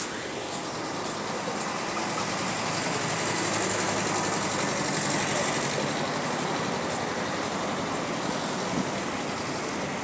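Roadside traffic noise: a steady hiss of vehicles on the street, swelling a little in the middle and easing off again.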